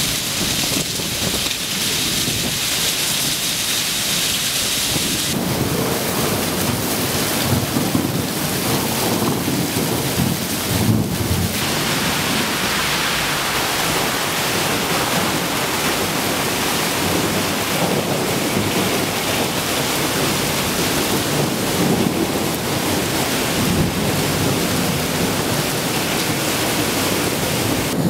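Heavy rain pouring down in a steady downpour on pavement and cars, the sound shifting in character twice, about five and eleven seconds in.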